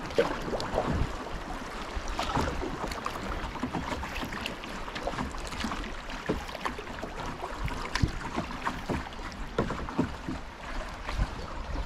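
Inflatable canoe being paddled down a small river: irregular paddle splashes and knocks over the steady rush of flowing water.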